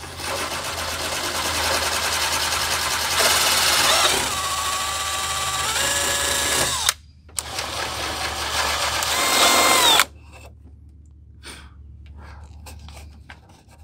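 Yellow DeWalt cordless drill boring a 3/8-inch hole through a fiberglass panel, its motor whine shifting in pitch as it cuts. It runs for about seven seconds, stops briefly, runs again for about three seconds and stops about ten seconds in, followed by faint clicks.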